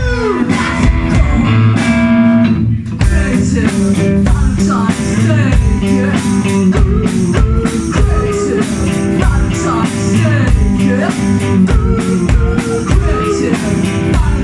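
A rock band playing: guitar with sliding, bent notes over a steady drum kit beat. The music drops out for a moment about three seconds in, then comes back in.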